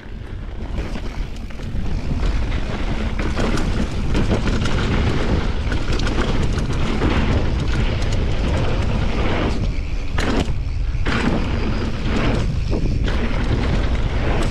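Wind rushing over the camera microphone, mixed with the rumble of a mountain bike's tyres on loose gravel and dirt. The noise builds over the first two seconds as the bike picks up speed, then holds steady, with a few sharp clatters about ten seconds in.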